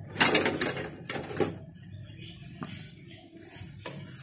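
Spatula scraping and knocking against a metal cooking pot as cooked curry is stirred and scooped up: two bursts of scraping clatter in the first second and a half, then a few light knocks.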